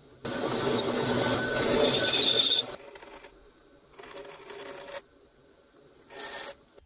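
Drill press bit cutting into a workpiece clamped in a drill-press vise, in three feeds: a long cutting scrape over the first two and a half seconds, then two shorter ones about four and six seconds in.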